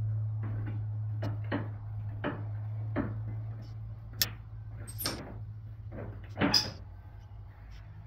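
Grille of a 2003 Ford F-450 Super Duty being worked loose from its plastic clips by hand: a string of short clicks and knocks, with a louder double knock late on, over a steady low hum.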